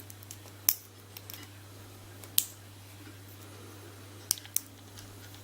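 Four sharp clicks and taps from the small metal parts and tools of a lock being taken apart. The last two come close together near the end.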